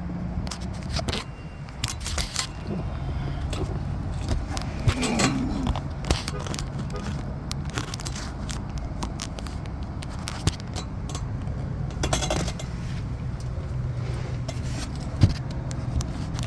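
Wires and wiring loom being handled and moved by hand, with scattered clicks, light scrapes and rustles, over a steady low background hum.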